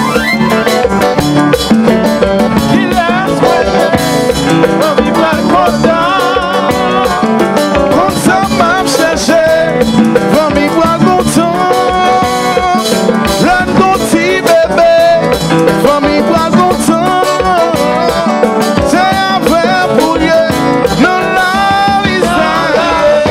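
Live Haitian kompa band playing: electric bass, drum kit and keyboard, with a man singing into a microphone over them.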